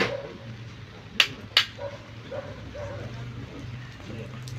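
Sharp percussive knocks: one at the start, then two close together about a second in, over a low steady hum.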